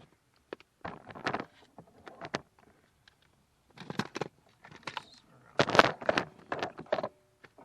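Clicks and rattles from a hand vacuum pump and its hose being handled and fitted to a dashboard vacuum line, coming in clusters, loudest about six seconds in.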